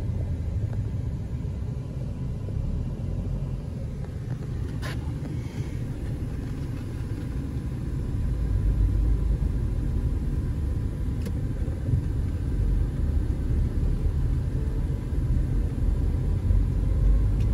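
Steady low rumble of a car's engine and tyres heard from inside the cabin, growing a little louder about eight seconds in.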